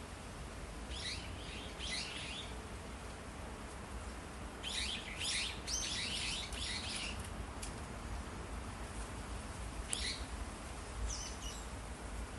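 Small birds chirping in quick high bursts, with a longer run of chirps in the middle and a last short call near the end, over a steady low rumble of wind on the microphone.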